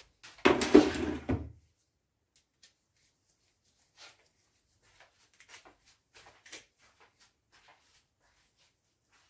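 A bolt-action rifle set down on a hard plastic rifle case: a clunk and rattle lasting about a second, just after the start, followed by a few faint ticks.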